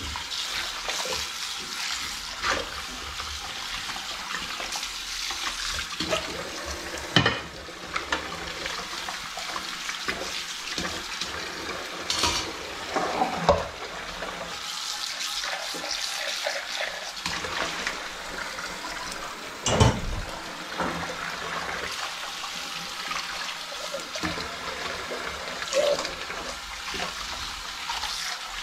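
Kitchen tap running into a sink as dishes are washed by hand, with a few sharp knocks of dishes against the sink; the loudest comes about two-thirds through.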